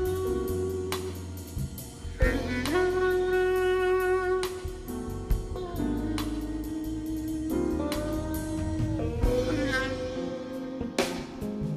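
Live jazz ensemble playing a slow ballad: a bass clarinet holds long melody notes, sliding into some of them, over bass and a drum kit with frequent cymbal strokes.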